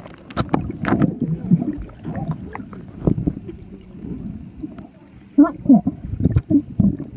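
Water heard through a submerged camera: a muffled churning with knocks and bubbling, and a burst of short gurgling bubble sounds about five and a half seconds in.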